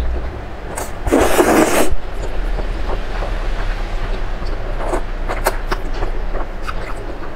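Close-miked slurping and chewing of instant noodles: one long, loud slurp about a second in, then wet chewing with many sharp mouth clicks and smacks.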